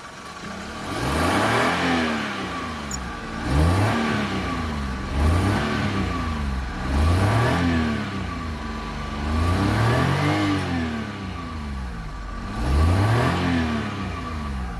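Car engine running and being revved repeatedly: six rises and falls in engine speed a couple of seconds apart, dropping back toward idle between each.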